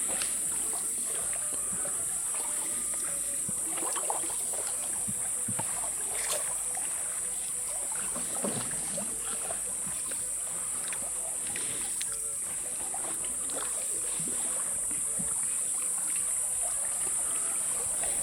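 Outdoor ambience from wildlife footage: a steady high-pitched hiss with scattered faint ticks and rustles.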